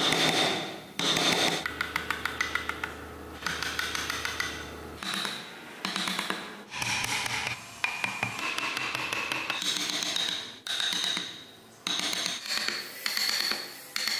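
Steel wood chisel scraping and cutting along a hand-carved wooden truck grille, with runs of rapid light taps. The sound comes in short sections that start and stop abruptly.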